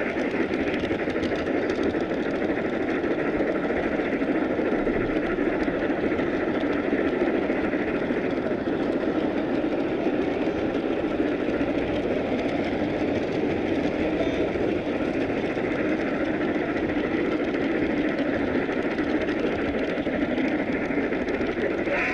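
Large-scale model train running along its track, heard from on board: a steady, even rolling noise from the wheels and cars, with no clear beat.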